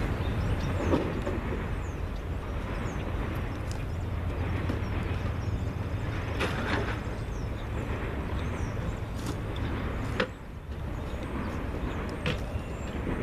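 CSX freight train of autorack cars rolling past on the rails: a steady rumble with a few short, sharp clicks scattered through it, and a brief dip in the rumble about ten seconds in.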